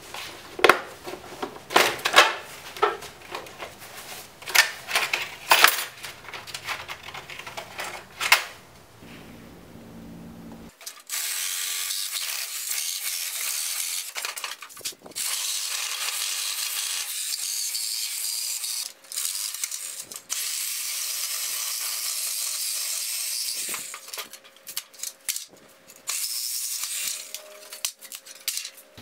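Hard plastic tool case being handled and unlatched, with a run of sharp clicks and knocks. Then a handheld power tool cuts into the joints of a wooden pallet in long steady runs with a high, hissing sound, broken by a few short stops.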